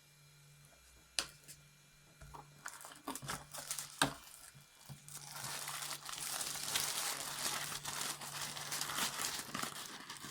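Packaging being unwrapped: a few knocks and clicks, then about five seconds of continuous crinkling and tearing of wrapping.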